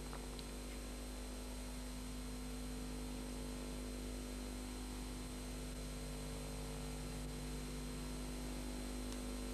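Steady electrical mains hum over an even hiss: the background noise of the recording, with no other clear sound.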